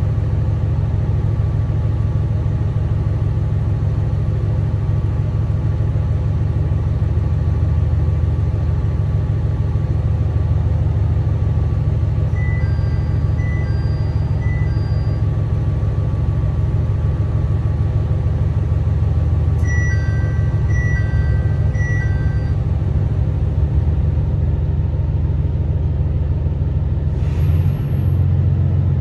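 Diesel engine of a Tosa Kuroshio Railway 9640 series railcar idling at a station stop, a steady low drone heard from inside the car. Twice in the middle a short series of electronic chime notes sounds, and near the end there is a brief hiss of air, after which the engine note grows as the railcar moves off.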